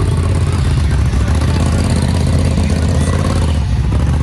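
Off-road vehicle engine running steadily.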